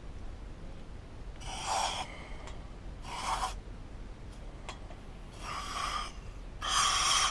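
Aerosol carburettor cleaner spraying through its extension straw into the jet holes of a carburettor body, in four short hissing bursts. It is flushing passages clogged with dirt.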